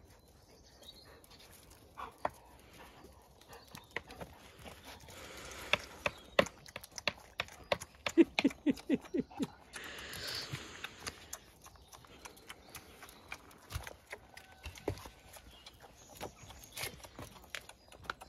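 Puppies scuffling and playing on paving stones: irregular clicks and taps of claws and paws, with spells of rustling. About eight seconds in comes a quick run of short low puppy noises, the loudest part.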